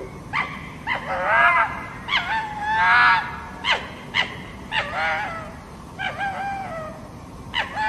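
Fox calling: a series of short, hoarse yelping calls, roughly one a second, some of them drawn out into a longer wavering cry.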